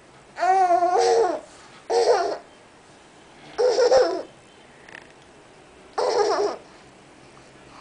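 Baby laughing in four short high-pitched bursts, the first the longest.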